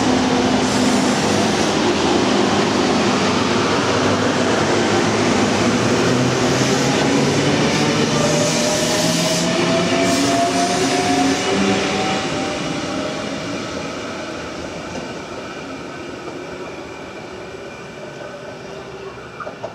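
Sydney double-deck electric suburban train (C set) pulling away along the platform: a steady rumble and clatter of wheels on rail, with a motor whine rising in pitch as it gathers speed. The sound fades steadily over the second half as the train moves off.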